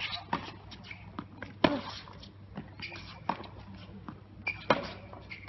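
Tennis rally on a hard court: sharp racket-on-ball hits and ball bounces, the loudest about a second and a half in and others roughly every second and a half, with light footsteps and a few short shoe squeaks between.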